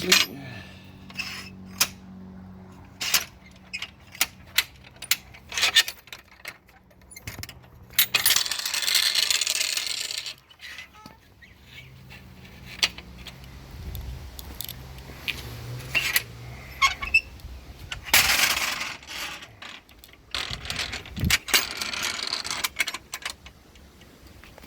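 Steel drop-rod latches on a picket gate clinking and knocking as the gate is worked and the rods drop into their holes in the concrete, with a few longer stretches of scraping between the knocks.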